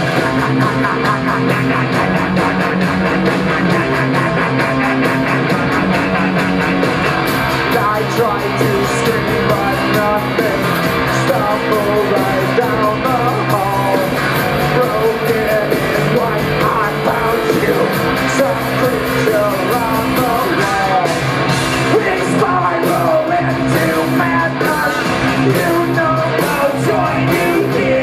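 Live rock band playing loud, with electric guitar, drums and electronics, and a singer's voice over the band.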